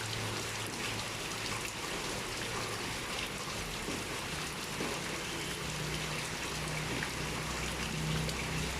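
Steady pouring rain, an even hiss of rainfall with individual drops ticking on a surface. A low steady hum sits underneath and grows a little stronger about halfway through.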